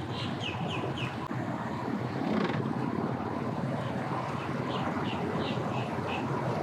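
Boat motor running steadily at low speed, with a bird giving a quick run of short falling chirps at the start and again past the middle.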